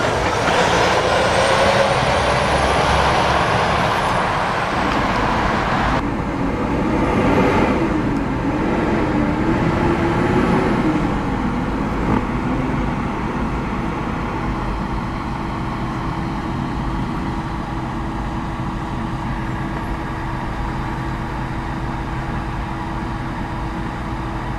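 Heavy trucks on the road: dense engine and tyre noise that changes abruptly about six seconds in, then a truck engine note that rises and falls for a few seconds before settling into a steady hum.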